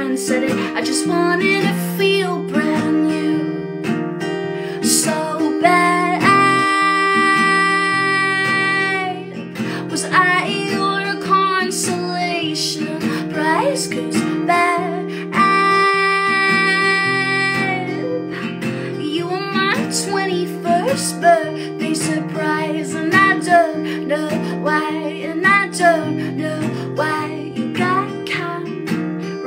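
A woman singing solo with her own strummed acoustic guitar. She twice holds a long note, about a quarter and about halfway through.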